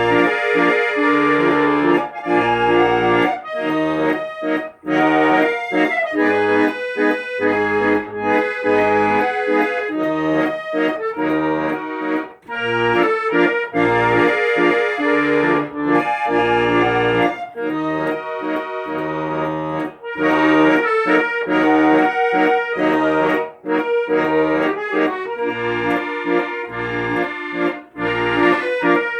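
Instrumental music with no singing: a melody of held notes over pulsing bass notes and chords.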